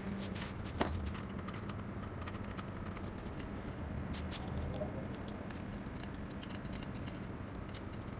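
Light metallic clicks and taps of a ring spanner working the handlebar stem bolt of a child's bicycle, with one sharper click about a second in. A steady low hum runs underneath.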